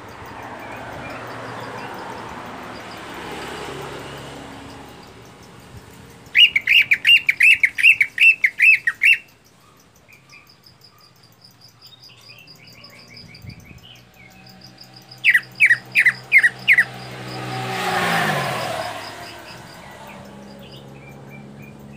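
Caged cucak ijo (green leafbird) singing two runs of loud, rapid, repeated notes, about four a second: about a dozen a third of the way in, and about six a little past halfway, with soft chirps between. A motor vehicle passes twice, swelling and fading; the second pass, near the end, is the loudest and drops in pitch.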